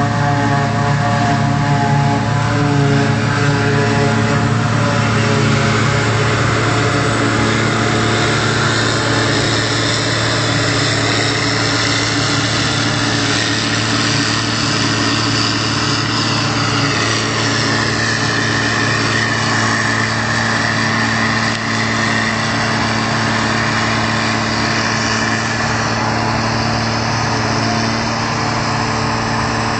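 John Deere 7400 self-propelled forage harvester chopping grass silage: its diesel engine runs steadily under load with a high whine above the drone, together with the tractor pulling the silage trailer alongside.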